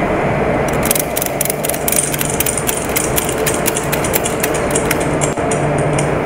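Ratchet buckle of a load-securing strap being worked by hand, giving a run of quick, irregular clicks from about a second in until shortly before the end. Under it is a steady low engine-like hum.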